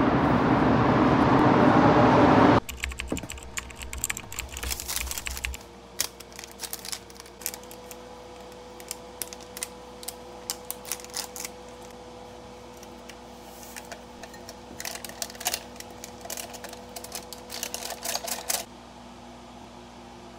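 A loud rush of noise from a metro train coming into an underground station, cut off abruptly after about two and a half seconds. Then bursts of computer-keyboard typing clicks, with short gaps, stopping shortly before the end.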